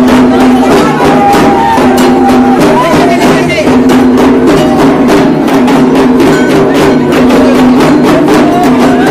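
Loud festival music: drums beaten fast and unbroken under a sustained melody line that steps in pitch, with crowd voices mixed in.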